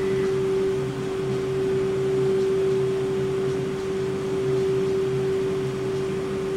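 BKN-S82 commercial soft ice cream machine running as it dispenses soft serve without stopping: a steady mechanical hum with one strong, even tone above it.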